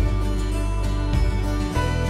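Background music with sustained chords over a deep bass, the chord changing twice in the second half.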